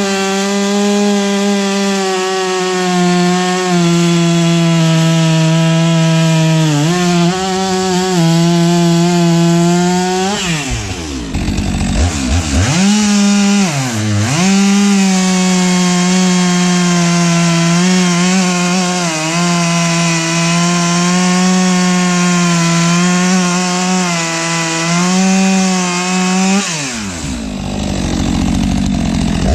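STIHL MS 462 72 cc two-stroke chainsaw running at full throttle, bucking logs into firewood. The engine pitch falls and climbs back twice about ten seconds in, and drops again near the end before revving back up, as the saw comes off and goes back into the cuts.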